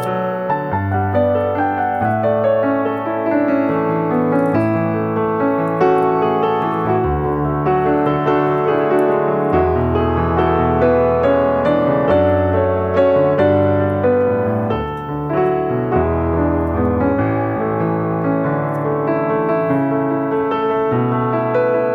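Background music played on piano or electric piano, with sustained bass notes and a changing melody.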